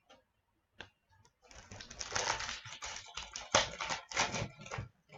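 OPC Platinum hockey trading cards being handled and flipped through by hand, card stock sliding and snapping in a quick run of rustles and clicks.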